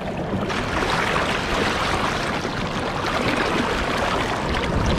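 Fast river current rushing steadily, a little louder from about half a second in; the water is fast and strong here.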